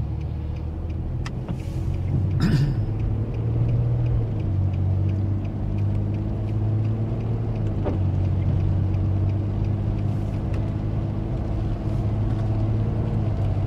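Car driving along a rain-wet highway, heard from inside the cabin: a steady low drone of engine and tyres on the wet road.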